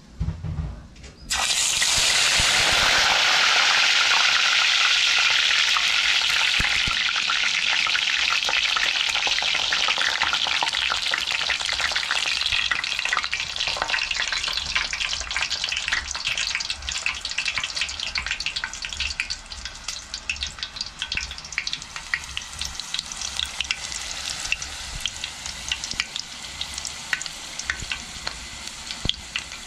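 Hot oil in a frying pot bursts into a loud sizzle about a second in as food goes in, the start of the chicken frying. It then eases into a steady fry with lots of sharp crackles and pops.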